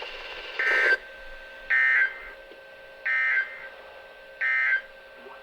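Emergency Alert System end-of-message data code from a NOAA Weather Radio receiver: four short, raspy bursts of digital data tones, each about half a second and a little over a second apart, signalling that the warning message has ended.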